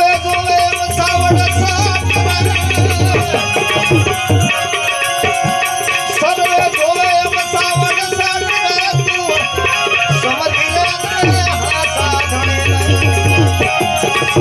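Gujarati santvani bhajan music: tabla strokes under a rattling hand percussion, with a held, wavering melody line above.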